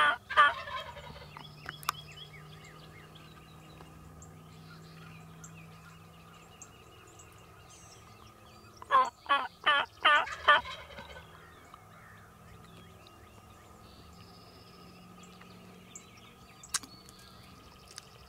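Wild Rio Grande turkey gobbler gobbling: the end of one gobble right at the start, and a second full gobble about nine seconds in, each a fast rattling run of loud notes.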